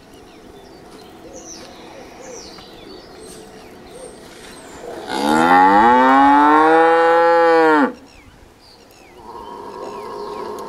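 A cow mooing once: one long call of nearly three seconds, about five seconds in, rising in pitch and then dropping away at the end. Small birds chirp faintly before and after it.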